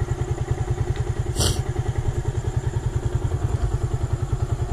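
Motorcycle engine idling with a quick, even pulse. A brief hiss about a second and a half in.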